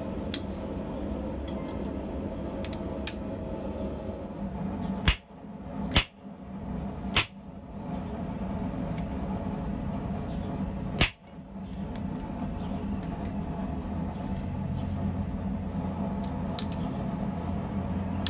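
Hand hammer striking an eye punch into red-hot medium-carbon steel on a swage block, starting the eye of a small hammer head: three sharp metallic strikes about a second apart, another a few seconds later and a fainter one near the end. A steady low hum runs underneath.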